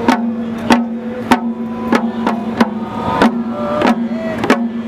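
Drumming in a steady beat, about one sharp stroke every two-thirds of a second, over a held low tone.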